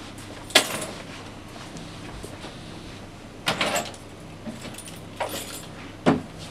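Handling sounds: four short clinks and rustles of small objects being picked up and set down, the first the loudest and the last a duller knock.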